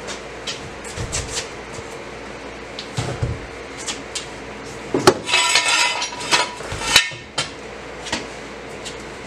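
Metal clinks and clanks as a steel exhaust system is raised back up into its mounts. Scattered sharp clicks run through it, with a burst of rattling about five seconds in and a loud knock near seven seconds.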